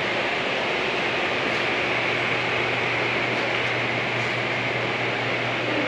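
Steady hiss with a constant low hum, the room tone of a building's air handling.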